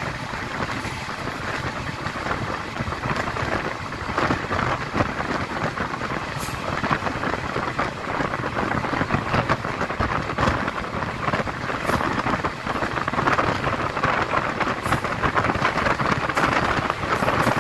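Passenger train running along the track: a steady rush of wheel and rail noise mixed with wind over the microphone held out of the carriage window, with a few short sharp clicks.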